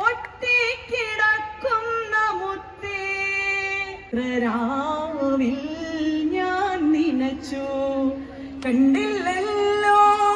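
A woman singing a melodic, ornamented song over musical accompaniment; the melody moves into a lower register about four seconds in and climbs again near the end.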